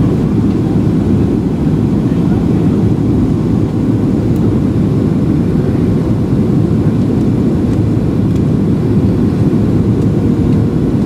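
Steady cabin noise inside a Boeing 737-700 airliner: an even rushing of engines and airflow, with a faint steady hum underneath.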